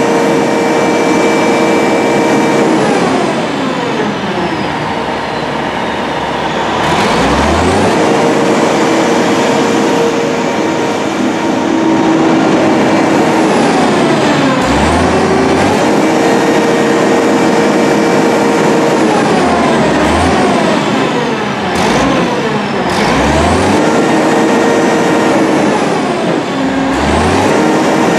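Terex T560 truck crane's engine running at raised revs to drive the hydraulics while the outrigger jacks are raised. The revs dip and climb back several times, with a few short low thumps.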